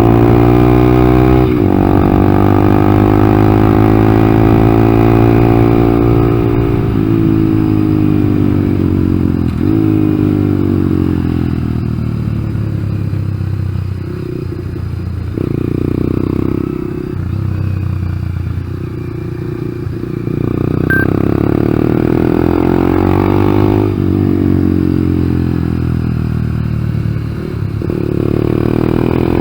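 Honda Grom's 125cc single-cylinder four-stroke engine revving up and dropping back several times through a lap on track, with a quieter off-throttle stretch in the middle. The engine bogs when the throttle is opened, which the owner traced to an ECU not reset after an engine swap.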